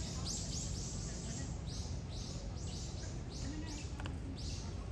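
A steady run of short, high chirps, about three a second, over low background noise.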